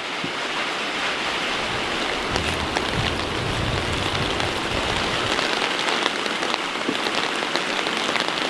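Steady crackling sizzle of cooking in a hot pan, with a low rumble under it from about two to five seconds in.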